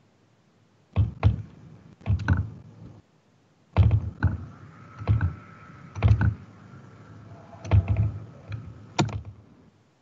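Irregular clicks of a computer keyboard and mouse being worked, each with a dull thud under it, in small clusters of one or two strokes, about a dozen in all.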